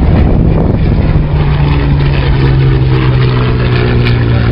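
Hawker Hurricane's Rolls-Royce Merlin V12 engine and propeller droning loudly as the fighter flies past, the pitch falling slowly from about a second in.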